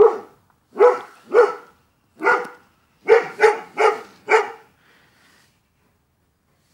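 A dog barking, about eight sharp barks over the first four and a half seconds, some singly and some in quick runs of two or three, then it stops.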